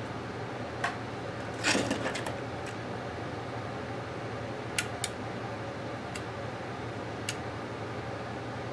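Sharp clicks and a short clatter of a small metal stapler being handled and lined up on a leather belt keeper, with a louder cluster of clicks just under two seconds in and single clicks later, over a steady background hum.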